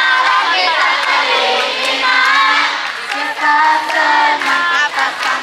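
A group of young voices singing a song together in chorus.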